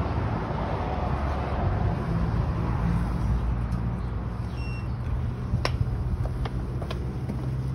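Street traffic noise: a steady low rumble of passing cars, with a few light clicks about two-thirds of the way in.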